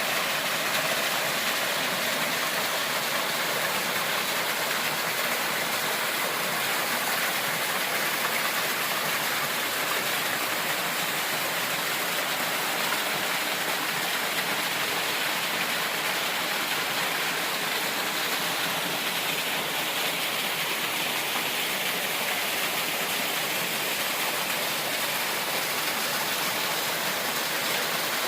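Steady rush of fast-flowing mountain water, an even hiss that does not change.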